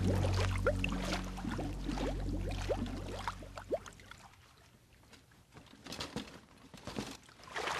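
Bathwater bubbling and gurgling in quick small plops, over a low droning film score that fades out in the first second or so. The bubbling thins out and goes quiet about halfway through, and a few faint knocks come near the end.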